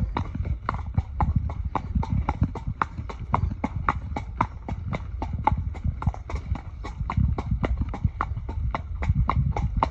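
A horse's hooves clip-clopping on a paved lane in a steady, even rhythm, about four to five hoof falls a second.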